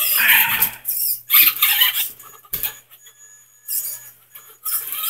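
Toy RC Bigfoot monster truck's motor and gears whining in several short bursts as it is driven in spurts across carpet, with a quieter pause midway.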